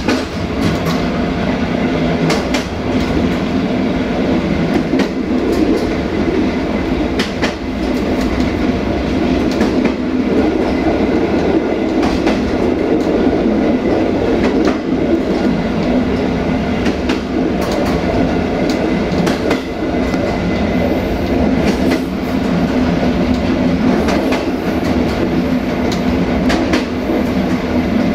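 Passenger train running steadily along the track, with the noise of the coaches' wheels on the rails and irregular sharp clicks as the wheels cross rail joints.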